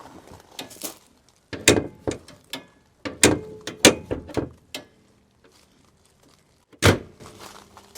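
Nissan Micra K11 bonnet being lowered and shut on its freshly cleaned and greased latch: a few clunks and knocks, then a single loud thump near the end.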